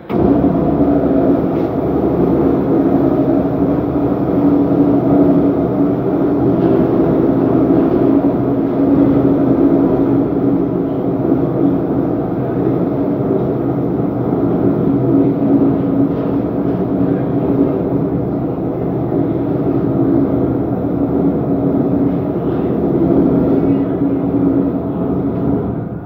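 Lift hoist machine running with a steady hum as the car travels in the shaft; it starts abruptly and stops near the end.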